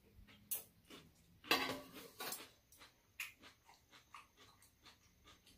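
Eating sounds at a shared meal: chopsticks and a spoon clicking against ceramic bowls and a metal tray in a run of short, irregular clicks, with one louder slurp of soup lasting about half a second about a second and a half in.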